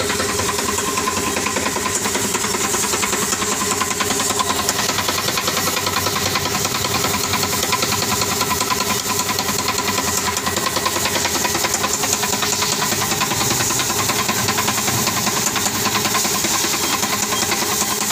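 Kumar piston pump running steadily, driven by an electric motor through a V-belt, with a fast even mechanical clatter. This is the abnormal pump noise being diagnosed, to be traced to the pump's oil, the belt, the on/off valves or the set pressure.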